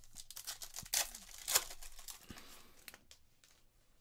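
A foil trading-card pack wrapper being torn open and crinkled by hand, with the loudest rips about one and one and a half seconds in, then fainter rustling.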